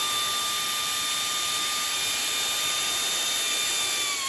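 Pneumatic air ratchet spinning a 10 mm bolt out, running flat out with a steady high whine over the hiss of its air exhaust; the pitch sags briefly near the end.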